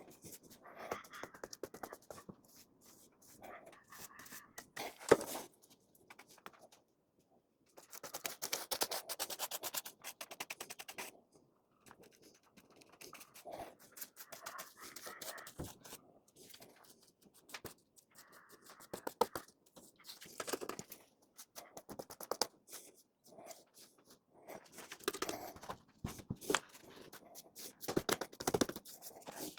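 Paintbrush strokes spreading paint over a door: soft, uneven scraping and swishing in short runs with pauses, the busiest stretch of quick strokes about eight to eleven seconds in.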